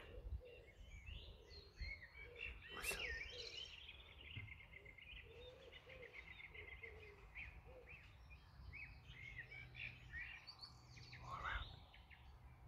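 Quiet outdoor birdsong: many small birds chirping and trilling, with lower repeated calls underneath.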